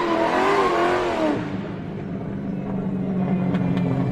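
Sports-car sound effect from an animated drift outro. It opens with a wavering, pitched squeal that lasts about a second and a half, then the engine runs with a steady low hum.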